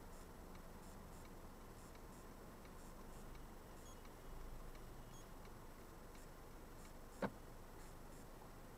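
Faint low rumble of a car's road and engine noise inside the cabin, with scattered faint high ticks and one sharp click about seven seconds in.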